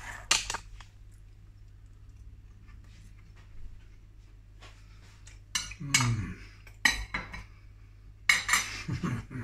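A metal fork clinks against a ceramic plate a moment after the start. Then come a few seconds of quiet chewing of a mouthful of pie, with short mouth noises and a couple of brief murmurs in the second half.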